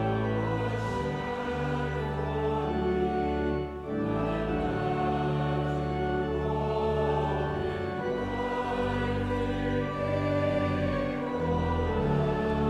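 Slow sacred choral music: a choir singing long, held chords over sustained low notes, the harmony changing every couple of seconds.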